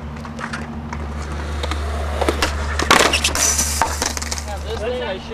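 Skateboard wheels and deck clattering along a concrete ledge: scattered clicks, then a loud cluster of knocks and scraping about three seconds in.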